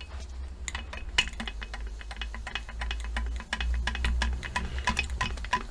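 Irregular crackle of clicks and spits from fluid leaking at the pressurised hose fitting on a seized brake caliper while its pistons are being forced out, over a steady low hum.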